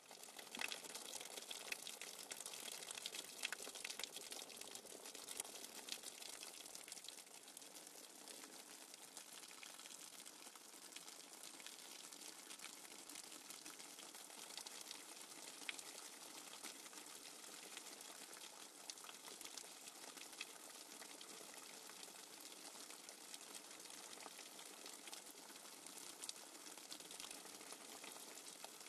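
Steady running water from a nature-sounds recording: an even hiss sprinkled with small ticks and patters.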